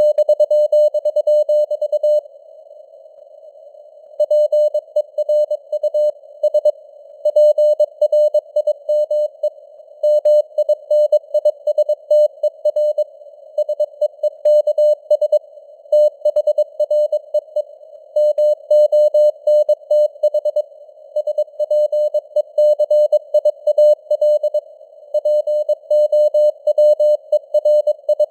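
Morse code (CW) sent at 22 words per minute: a single steady mid-pitched tone keyed on and off in quick dots and dashes, over a hiss of simulated radio-receiver noise. The keying stops for short gaps between words.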